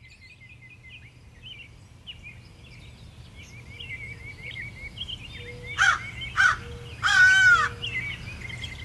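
Outdoor ambience of small birds chirping throughout over a low steady hum, with three louder, harsher bird calls in the second half: two short ones around six seconds in and a longer, loudest one about seven seconds in.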